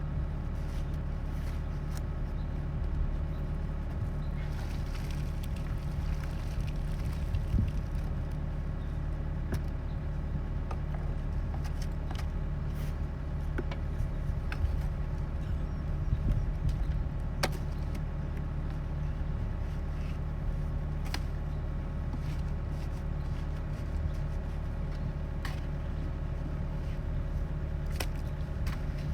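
An engine running steadily at idle, with scattered light clicks and knocks over it.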